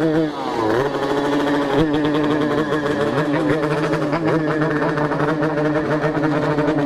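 Yamaha RX King two-stroke single-cylinder motorcycle engine with a 'helicopter spec' exhaust. It revs up about half a second in, then runs at a steady speed.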